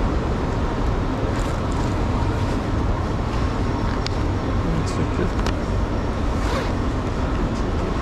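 Ambience of a busy railway station concourse, heard while walking through it: a steady low rumble of the hall with indistinct voices and a few sharp clicks scattered through.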